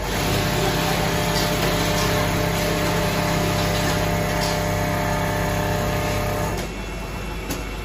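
Richpeace automatic sleeping-bag sewing machine running, driving the clamped template frame along under its sewing head. It is a steady machine hum with several tones that starts at once and stops about six and a half seconds in.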